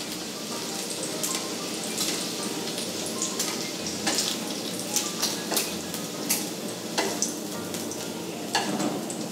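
Bacon strips sizzling in a nonstick frying pan, a steady hiss with scattered sharp crackles and pops.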